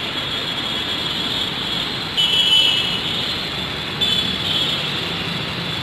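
Metro train running: a steady rushing noise with a high whine that gets suddenly louder about two seconds in and again about four seconds in.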